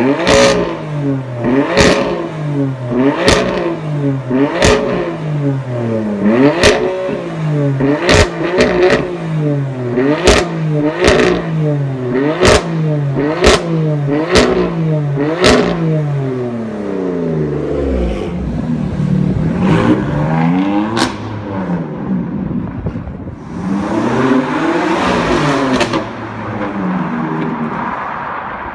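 BMW M4's twin-turbo straight-six being blipped over and over, about one quick rev every second and a half, each lift-off punctuated by sharp exhaust pops and crackles on the overrun. Later the revs come slower and longer, with a fuller, noisier rise and fall near the end.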